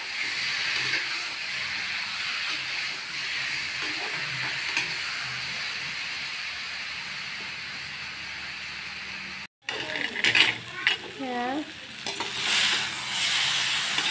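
Taro pieces in a tomato-onion masala sizzling in an iron kadai while a spatula stirs them. After a brief break about nine and a half seconds in, the spatula scrapes and knocks against the pan more loudly, with a few short squeaks.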